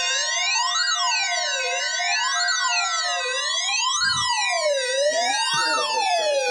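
Electronic siren effect of layered tones, sweeping up and down together about every second and a half at several pitches, over steady tones that slowly sink in pitch. One of the steady tones cuts off about three seconds in, and there is a brief low thump about four seconds in.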